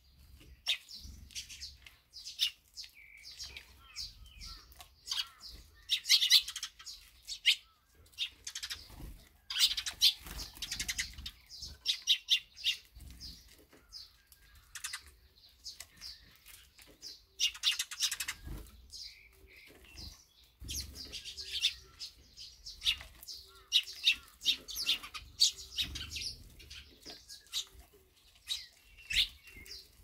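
A flock of Eurasian tree sparrows chirping in busy bursts with short lulls, with wings fluttering as birds fly in and out of a seed feeder.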